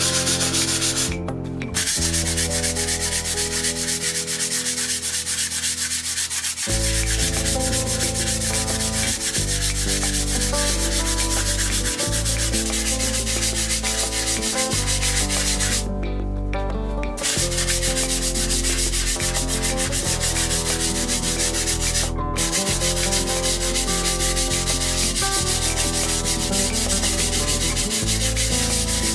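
Sanding of dried multi-purpose filler on a skimmed wall: a steady rubbing scrape with a few short pauses.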